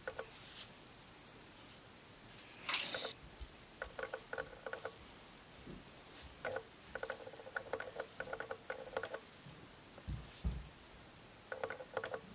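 Faint rustling and light jangling in short flurries as a ringed, braceleted hand runs through and shakes out long straight hair, with a soft low thump about ten seconds in.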